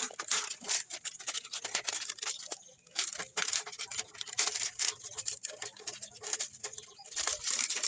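Scissors snipping through a thin clear plastic bottle: a rapid run of crisp cuts and crackles of the plastic, with a short pause about three seconds in.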